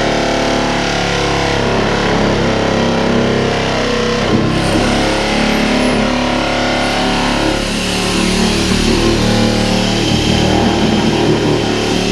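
Car engine running hard at high revs, its pitch shifting up and down a little.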